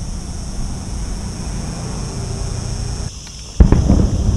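A steady low outdoor rumble with a high buzz over it. About three and a half seconds in comes a sudden loud bang, a daytime firework going off, and it dies away over about a second.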